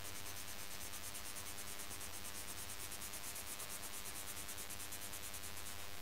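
The side of a Black Widow coloured pencil rubbing back and forth across paper in quick, even shading strokes, faint.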